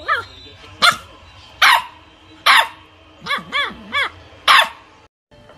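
Small dog yapping: five sharp, high barks at roughly one a second, with three quick yips that rise and fall in pitch between the fourth and fifth bark.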